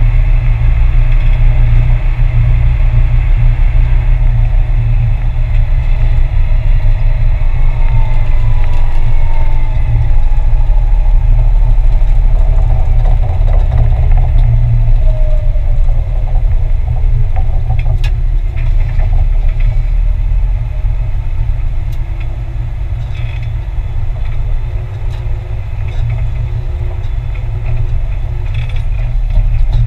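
Valtra 8350 tractor's diesel engine running steadily, with a falling whine about halfway through.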